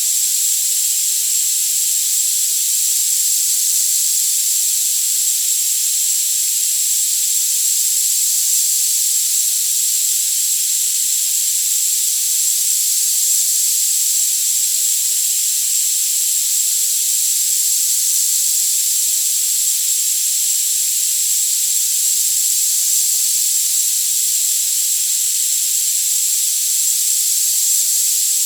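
Synthetic tinnitus-therapy sound: a loud, steady, thin hiss of high-pitched noise with no low or middle range, and a single steady high whistle-like tone running through it.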